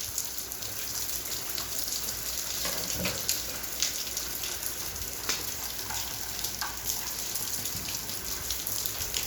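Rain falling, an even steady hiss with a few scattered drip taps, as the rain is easing off.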